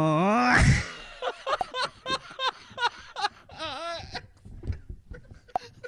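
Laughter: a loud rising cry at the start, then a run of short, pitched laughs, about three a second, growing fainter.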